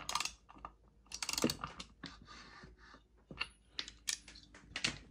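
Irregular light clicks and knocks as a 47 mm sleeved motorized-bicycle two-stroke engine, cylinder fitted to the crankcase without its head, is handled and repositioned by hand.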